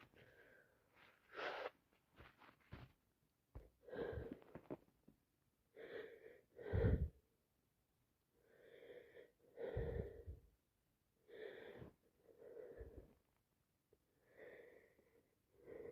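Wheezy, congested breathing from a woman with a heavy cold turned sinusitis: a run of short, voiced breaths in and out, one every second or so. About seven seconds in comes a sharper, louder one.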